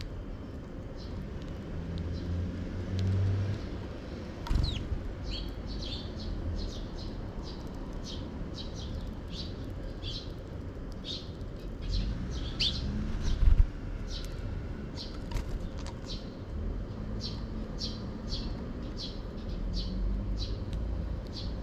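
Eurasian tree sparrows chirping: short, high chirps repeated about once or twice a second, over a low background rumble. A few brief low thumps, the loudest about two-thirds of the way through.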